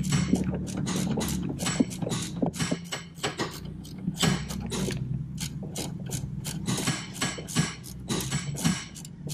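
Ratcheting wrench clicking in repeated quick strokes as it tightens a 14 mm sway bar link nut.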